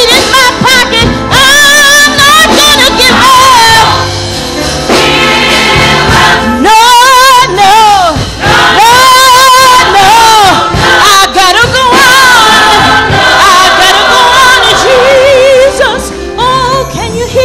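Gospel song with a woman singing the lead with strong vibrato, backed by a choir and band.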